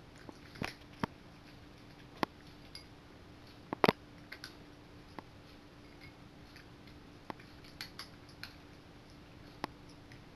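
Cat eating from a bowl: scattered sharp clicks and crunches, about one or two a second and irregular, the loudest a double click about four seconds in, over a faint steady hum.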